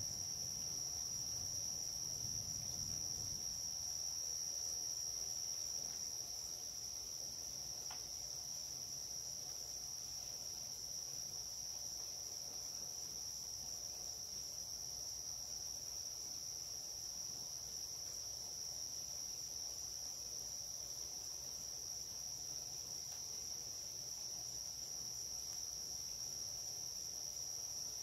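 Steady high-pitched chorus of night insects singing without a break. A low rumble underneath dies away over the first five or six seconds.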